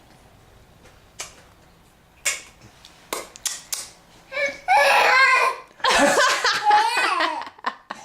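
Laughter breaking out about halfway in, in loud bursts that run nearly to the end, a baby's laughter among it. Before it, a few small knocks over quiet room sound.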